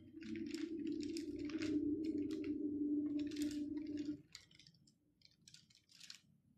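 Thin Bible pages being leafed through, soft rustles and page flicks, over a steady low hum that stops about four seconds in; after that only a few faint page sounds.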